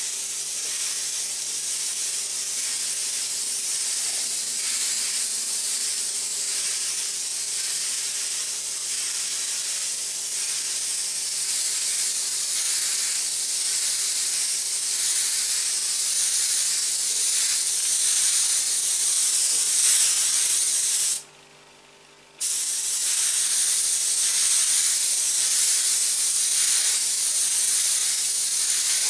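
Airbrush spraying paint: a steady hiss of compressed air through the nozzle, which stops for about a second roughly three quarters of the way through and then starts again.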